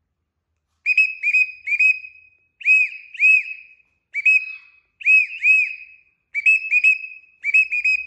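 A person whistling in quick bursts of two or three short rising-and-falling notes, about once a second, to call a baby Alexandrine parakeet to fly to the outstretched hand.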